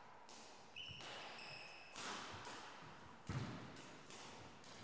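Badminton singles rally: racket strikes on the shuttlecock, footfalls on the wooden court and brief high-pitched shoe squeaks, in an echoing hall. The loudest hit comes a little over three seconds in.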